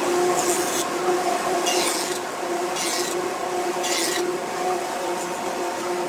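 Wood jointer running with a steady motor hum while a board's edge is pushed over the cutterhead, four short hissing cuts about a second apart.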